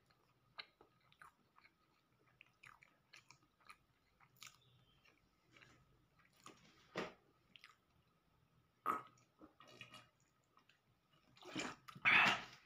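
Close-miked chewing of a soft cheese roll: small wet mouth clicks throughout, with louder bursts about seven and nine seconds in and the loudest near the end.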